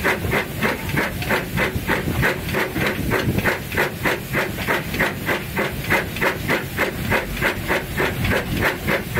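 Saddle-tank steam locomotive working steadily, its exhaust chuffing from the chimney in an even rhythm of about four beats a second, heard from the footplate.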